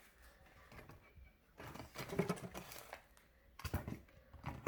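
Paper squishies and paper being handled and stacked inside a homemade paper vending machine: light rustling and soft taps in a few short bursts.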